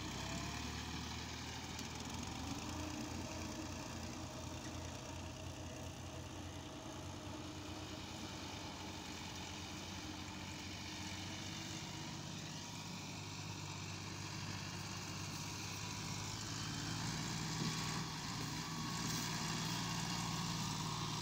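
Diesel farm tractor engine running steadily while pulling a trailer loaded with soil, a little louder near the end.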